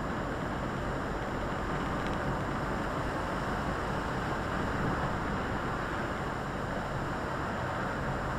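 Volvo FH articulated lorry driving at a steady pace: a constant low engine drone under steady tyre and road noise on the wet road, with no distinct events.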